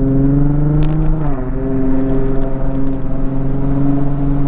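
Nissan 350Z's 3.5-litre V6 running through a muffler-deleted aftermarket exhaust, with a steady drone while driving. The pitch rises slightly, then steps down a little over a second in and holds level.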